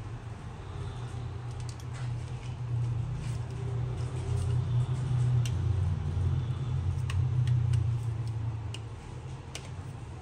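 A steady low rumble, louder in the middle, with scattered small clicks and taps from an iPhone 7 being handled as its replacement screen is pressed onto the frame.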